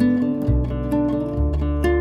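Background music led by acoustic guitar, with plucked notes over a low bass line.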